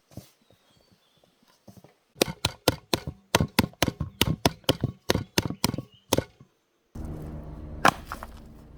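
A utensil knocking quickly against a mixing bowl while hotteok dough is mixed: a run of sharp knocks, about four a second, lasting around four seconds. After a brief gap, a steady low hum comes in with a single loud click.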